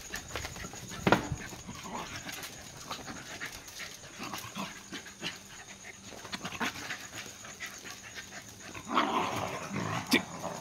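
Cocker spaniels panting excitedly as they greet their owner, amid many short clicks and scuffles. There is a sharp louder click about a second in and a louder, noisier stretch about nine seconds in.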